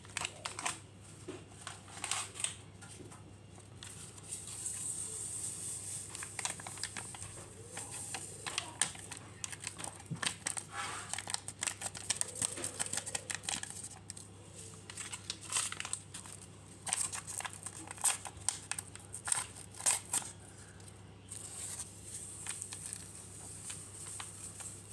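A Dream Whip topping-mix packet crinkling and rustling in the hands as its powder is shaken out into a stainless-steel mixing bowl, with many small irregular crackles throughout.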